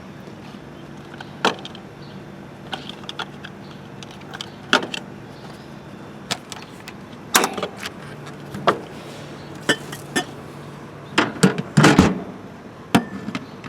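Norcold fridge-freezer's compressor running with a steady low hum, under a scatter of sharp clicks and knocks from handling, with a louder cluster of knocks about eleven to twelve seconds in.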